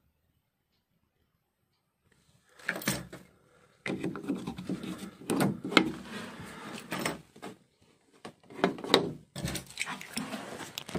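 Fingers turning and rubbing the plastic cover cap on an Iveco Crossway bus door's lock, the cap that is turned to open the door. After about two seconds of near silence come irregular rubbing and scraping strokes with a few sharper clicks.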